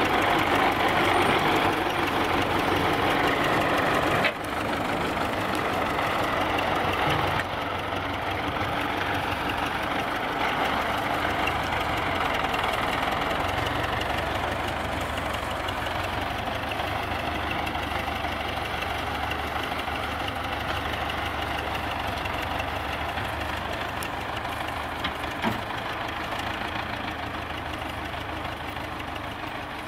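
Wheeled tractor's diesel engine running as the front-loader tractor drives away along a sandy dirt track. The sound drops a step about four seconds in and again a few seconds later, then fades slowly as the tractor moves off.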